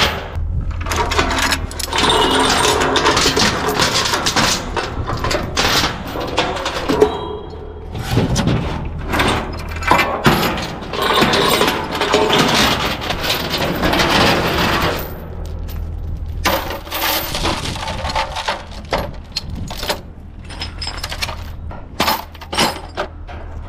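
Small construction machine running with a steady low hum under repeated clanking, rattling and scraping of metal and stone.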